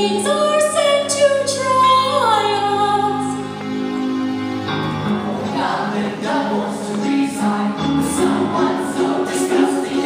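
A small group of singers performing a show tune live with piano and guitar accompaniment. Long held sung notes, one gliding down about two seconds in, give way at about five seconds to a bouncy rhythm of repeated chords.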